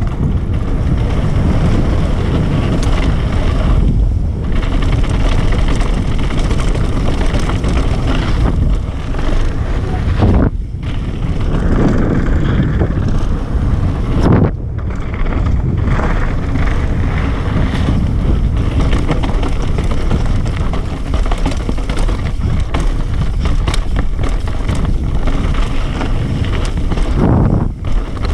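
Wind buffeting a helmet or chest camera's microphone over the tyres, chain and frame of a YT Capra mountain bike rattling and clattering down a fast downhill trail, with several brief lulls.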